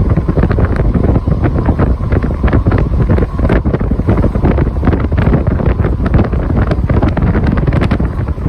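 Strong wind buffeting the microphone: a loud, uneven low rumble with constant crackling gusts.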